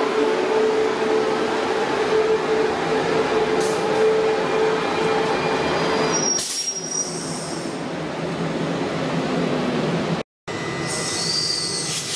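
Queensland Rail electric multiple-unit train running past close by: a steady rumble of wheels on rail with a motor hum, and brief high wheel squeals about six seconds in and again near the end. The sound cuts out for a moment just after ten seconds.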